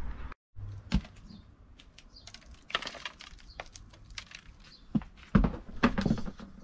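Light clicks and taps of small plastic plant pots and a seed tray being handled during seed sowing, with a denser flurry of clicking and rustling about three seconds in and a few louder knocks near the end. The sound cuts out for a moment just after the start.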